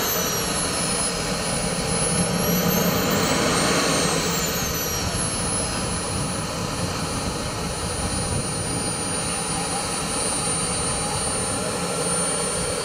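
Model jet turbine engines running with a steady rushing noise and a high whine. The whine dips, climbs to a peak about four seconds in as the turbine speeds up, then settles back to a steady pitch.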